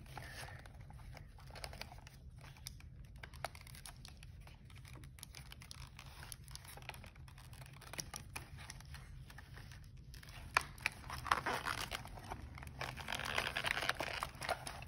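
Cardboard and plastic toy packaging rustling and crinkling as it is handled and pulled apart, with scattered light clicks; busier and louder from about ten seconds in.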